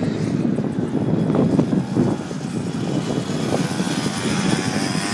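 Small quad bike engines buzzing as the quads ride round a dirt track, heard from a distance, their pitch wavering as they speed up and slow down.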